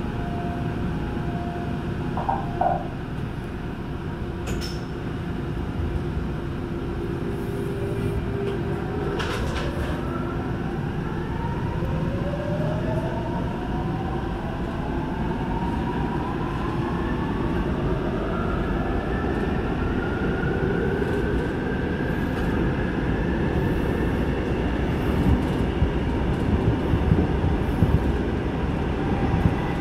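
Seoul Subway Line 8 train heard from inside the car as it pulls away from a station and accelerates into a tunnel. Under a steady running rumble, the traction motors' whine rises in pitch for about fifteen seconds, starting about a quarter of the way in.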